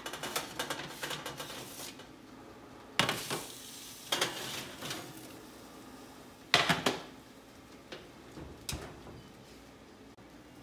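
Metal baking sheets rattling on the oven rack as they are slid out, then clanking down onto the stovetop twice. A louder bang follows as the oven door is shut.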